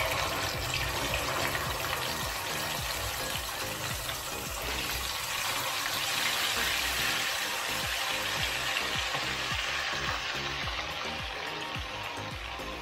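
Blended dried-chili spice paste sizzling and spattering in hot cooking oil in a non-stick wok as it is scraped in and stirred with a wooden spatula; the sizzle starts as the paste hits the oil.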